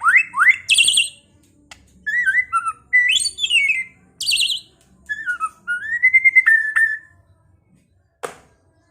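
White-rumped shama (murai batu) singing a varied run of loud whistled phrases, some rising, some falling and slurred, broken by short pauses, with one sharp note near the end.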